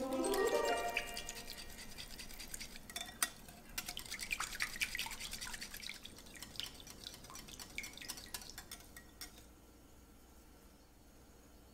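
Wire whisk beating eggs and liquid in a glass mixing bowl: rapid clicking and scraping of the metal wires against the glass, thinning out after about nine seconds. It opens with the last of a pour of liquid into the bowl, its note rising for about a second.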